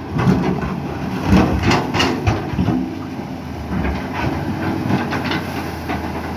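CAT 320C hydraulic excavator, fitted with a Mercedes-Benz 366 diesel engine, running steadily under load while its bucket digs through rock and mud. Repeated metallic knocks and clanks come from the bucket and linkage, thickest in the first three seconds.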